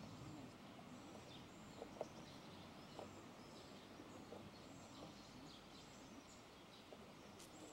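Near silence: faint outdoor ambience with scattered faint bird chirps and a soft tap about two seconds in.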